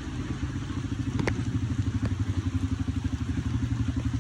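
ATV engine running steadily at low revs, a fast, even low pulsing, with one brief click about a second in.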